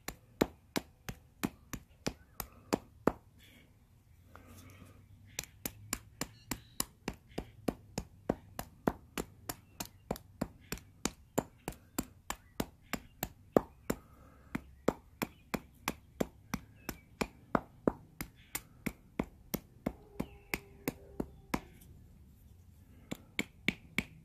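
A chunk of Georgetown flint, used as a hand axe, striking the end of a wooden stick in a steady series of sharp chops, about three a second, cutting it roughly round. The chopping stops briefly twice.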